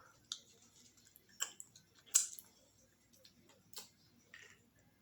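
Eating sounds: a few sharp, scattered clicks and smacks while chewing a meal of chicken stew, beans and rice, the loudest about two seconds in.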